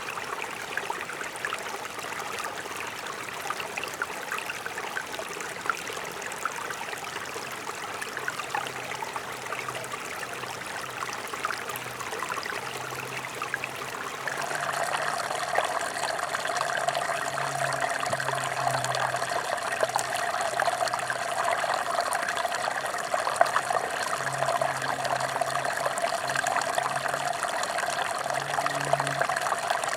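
Mountain stream running steadily. About halfway through the water grows louder and fuller.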